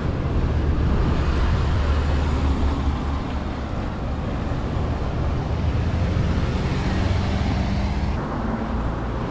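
Steady road-traffic noise: car engines and tyres running past.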